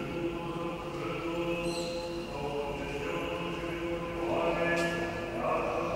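Orthodox liturgical chant: voices singing a slow hymn in long, held notes, moving to new notes a little past the middle.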